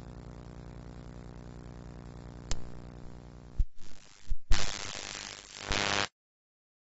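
Steady electrical hum of the recording with a single click, then several sharp clicks and a few seconds of loud hiss before the audio cuts off abruptly to silence as the recording ends.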